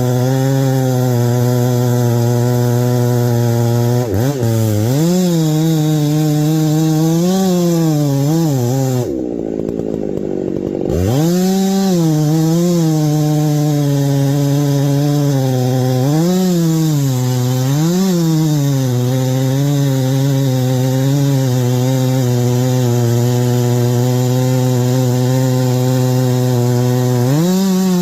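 Chainsaw running and cutting wood, its engine pitch rising and falling again and again as it revs and is loaded in the cut. Around ten seconds in, the engine note drops and the sound turns dull for a couple of seconds before the revving picks up again.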